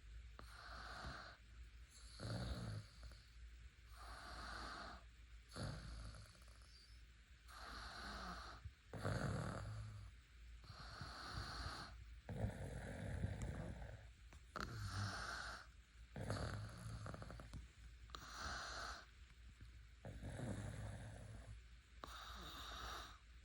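Steady, rhythmic snoring, one snore every second or two.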